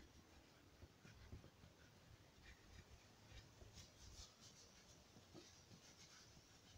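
Near silence with faint, irregular scratchy strokes of a paintbrush spreading lacquer on a hardwood stool.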